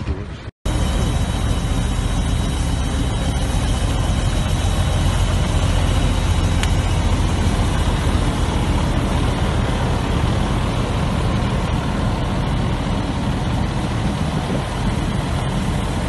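Loud, steady rumbling noise beside a burning DAF XF semi-trailer truck, with a faint thin high whine over it. It cuts in after a brief silence about half a second in.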